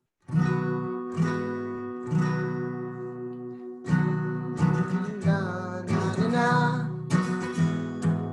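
Acoustic guitar strummed in ringing chords, a few slow strums about a second apart and then a quicker rhythm, with a voice starting to sing about five seconds in.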